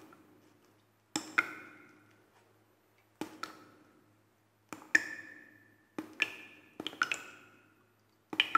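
Sharp pitched taps, mostly in close pairs about once every second or two, each with a short ringing tone like a wood block or ping.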